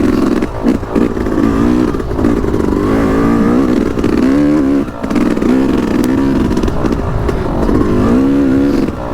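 Yamaha YZ250X single-cylinder two-stroke engine revving up and down under load on the trail, its pitch climbing and falling over and over, with brief drops in throttle about half a second in, about five seconds in and near the end.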